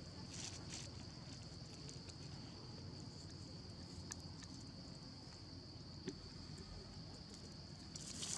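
Faint outdoor ambience with a steady high-pitched insect drone, plus a few small clicks and rustles near the start, twice in the middle and near the end.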